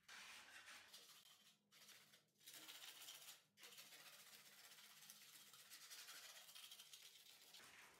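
Faint scraping of a steel trowel smearing and smoothing wet mortar over a chased groove in a plastered wall, in repeated strokes with a few short breaks in the first half.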